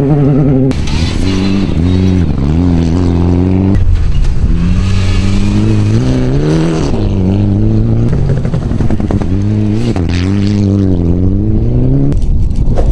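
Rally car engines revving hard, their pitch repeatedly climbing and dropping as the cars slide on loose dirt, with a hiss of spraying gravel and dust. The sound changes abruptly several times from one car or pass to the next.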